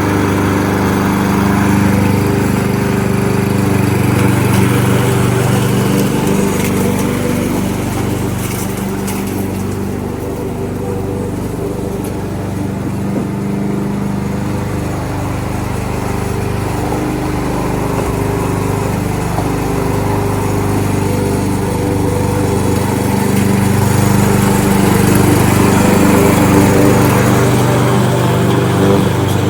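Kohler XT-675 single-cylinder engine on a push lawnmower running steadily on its first run after winter storage. Its sound dulls for a few seconds around the middle, then comes back.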